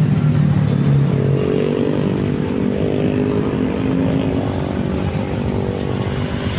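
Motorcycle engines running in dense, slow-moving motorcycle traffic: a steady engine hum whose pitch rises and falls slightly, over road noise.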